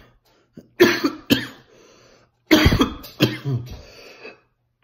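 A man coughing after inhaling vapour from a cannabis vape cartridge: two sharp coughs about a second in, then a longer fit of several coughs halfway through.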